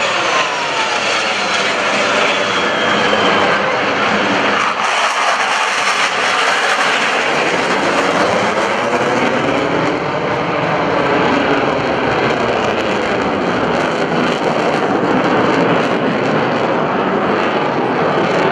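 Twin jet engines of a US Navy Blue Angels F/A-18 Hornet running at high power as it climbs away, a loud continuous jet noise with sweeping tones that fall just after it passes.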